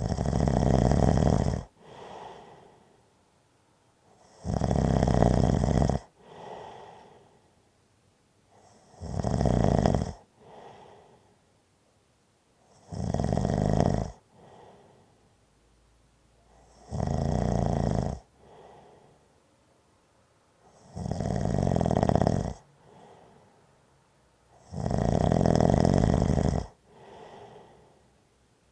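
Slow, regular snoring: seven long, loud snores about four seconds apart, each followed right away by a shorter, quieter sound.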